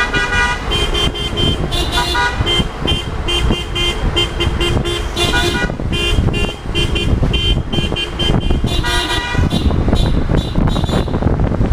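Vehicle horns honking in celebration, tooting in quick rhythmic runs of short blasts, about four a second, with brief pauses between runs, over a steady low rumble of the moving car. The honking stops near the end.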